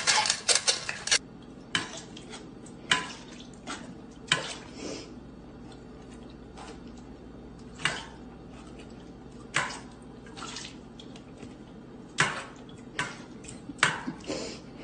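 A dog eating dry kibble from a stainless steel bowl: sharp metallic clinks every second or so. It opens with about a second of quicker clattering at a feeding bowl.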